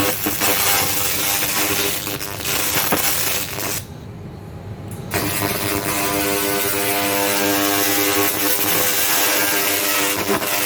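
Laser cleaning machine running: a loud hiss with a steady hum under it. It cuts out about four seconds in for just over a second, then starts again.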